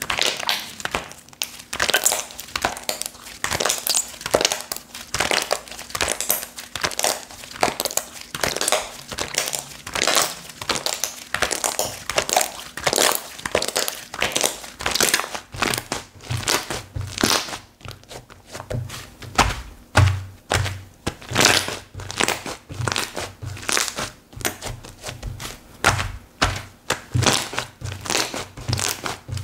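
Slime being squished and pressed by hand, a steady run of crackling, popping clicks. From about halfway through, dull low thuds join in.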